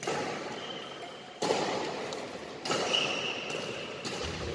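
Badminton play in an echoing sports hall: about three sharp racket strikes on the shuttlecock, roughly a second and a half apart, with brief high squeaks from shoes on the court floor.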